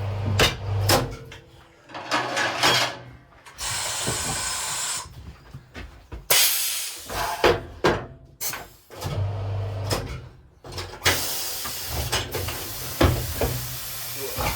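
Tyre-fitting equipment at work: several short hisses of compressed air, sharp clicks and knocks of metal parts, and a low steady motor hum that starts and stops.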